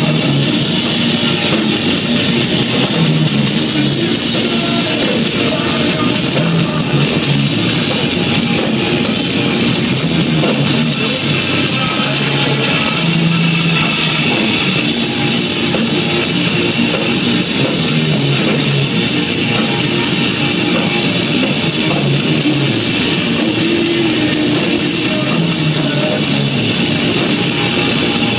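Heavy rock band playing live at a steady loud level: distorted electric guitars, bass guitar and drum kit, heard from the audience.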